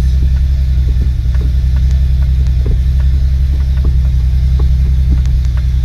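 Porsche 911 SC's air-cooled flat-six engine idling steadily, heard from inside the cabin, with a few faint clicks and clunks as the newly fitted gear shifter is moved through the gears.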